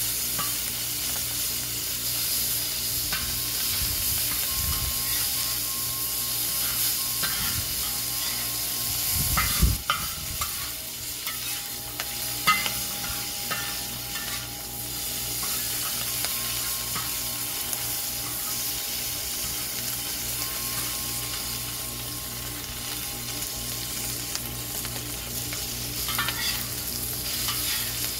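Chopped bacon sizzling hard on a very hot discada, a steel wok made from a plow disc, over charcoal. A metal stir-fry spatula scrapes and taps across the steel as the bacon is kept moving, on a disc the cook says is too hot. There is a low bump about ten seconds in.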